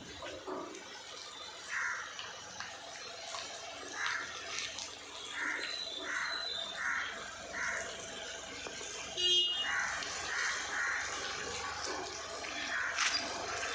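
Crows cawing repeatedly, in short runs of two to four caws about half a second apart, over street background noise. A brief high tone sounds about nine seconds in.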